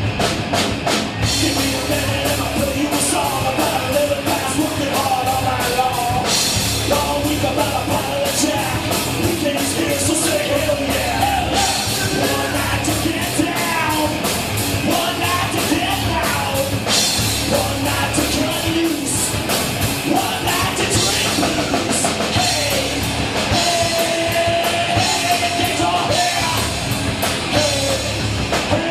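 Rock music with a drum kit and a singing voice, playing steadily.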